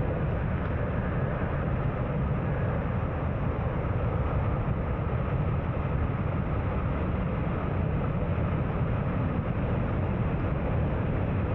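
Car being driven on a city road: a steady rumble of road and engine noise.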